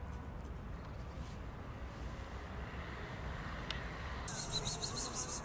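Steady low outdoor rumble, with a single sharp click about three and a half seconds in and a loud high hiss starting about a second before the end.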